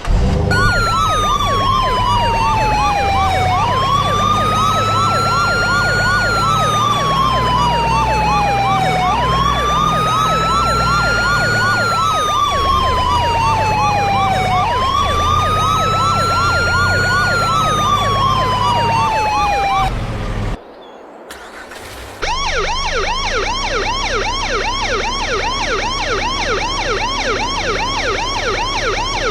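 Electronic siren horn of the kind fitted to Indonesian 'telolet' trucks, sounding a slow rising-and-falling wail about every five and a half seconds over rapid warbling sweeps. It cuts out about twenty seconds in and, after a short gap, comes back in a faster repeating yelp pattern.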